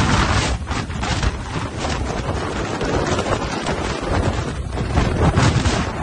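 Tropical cyclone wind buffeting the microphone in loud gusts, a constant low rumble under a rushing hiss, swelling hardest about five seconds in.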